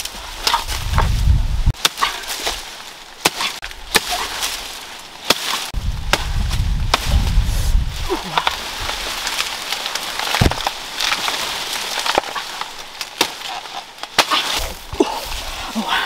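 Blade chops and snaps into a banana plant's stalk while a bunch of bananas is cut free, irregular sharp knocks over the rustle of banana leaves.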